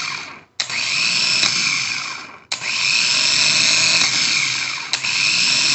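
Ford Ranger 2.9 starter motor spinning freely at high speed on the bench, powered by jumper cables, in three runs: it cuts off briefly just after the start and again about two and a half seconds in, with a sharp click each time it kicks in. The starter works again with its new solenoid.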